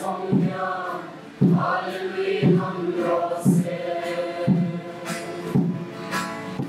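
Children's choir singing a hymn together, with a low beat about once a second under the voices.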